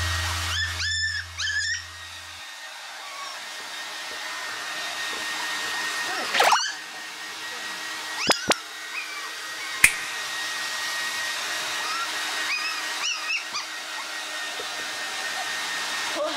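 Hair dryer running steadily while a toy poodle puppy gives short high whines, a cluster in the first couple of seconds and more about two-thirds of the way through. A few sharp clicks come in between.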